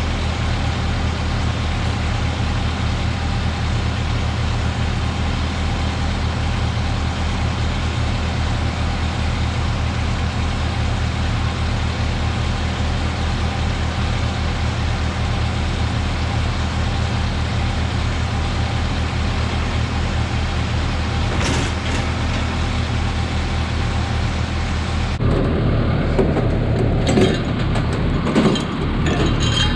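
Kubota tractor's diesel engine running steadily. Near the end a string of sharp metal clanks and knocks sounds over it.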